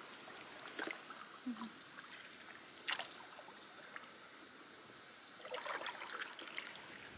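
Quiet, light paddle strokes and water trickling off the blade beside an inflatable kayak, with one sharp knock about three seconds in.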